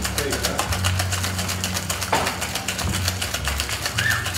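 Ice rattling inside a metal cocktail shaker as it is shaken hard: a rapid, even rattle of many strokes a second.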